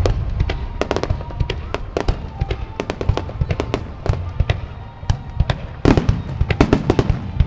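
Fireworks going off: a rapid, irregular run of sharp bangs and crackling pops over a low rumble, with a denser cluster of bursts near the end.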